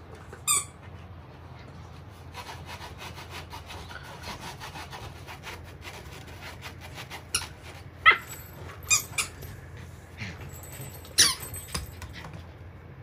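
Samoyed puppy's paws scratching rapidly at the fabric of an elevated pet cot as she digs, in a quick run of scratching strokes. After that come several short, sharp squeaks, the loudest about eight and eleven seconds in.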